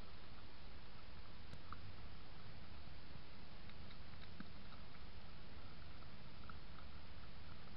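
Faint small crunches and clicks of a red fox chewing food picked off the ground close to the microphone, scattered irregularly over the trail camera's steady hiss and low hum.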